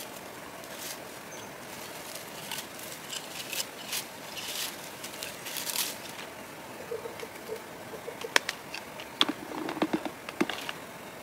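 Wild blueberry bushes rustling as a handheld berry-picking scoop is combed through them, with scattered sharp clicks and brushing hiss, busier near the end.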